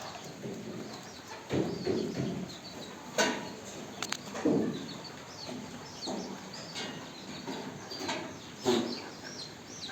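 Barbari goats calling with short bleats several times, over steady chirping of small birds.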